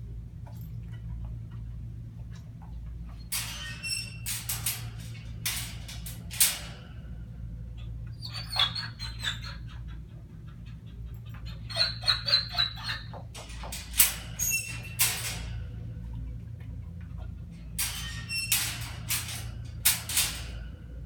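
Short bursts of metal clinking and rattling, from a wire exercise-pen gate and a dog's collar as the dog moves at the gate and is handled. A steady low hum runs underneath.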